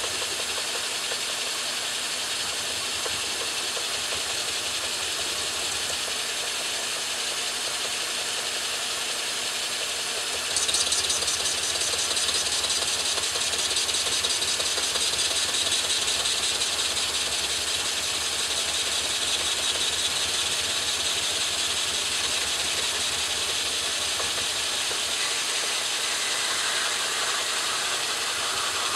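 A 12-inch Atlas lathe running while a CCMT carbide insert faces off a crank web casting held in the three-jaw chuck: a steady hiss of the cut over the machine's running, with a thin, steady high whine. The sound steps up louder and hissier about ten seconds in and stays so.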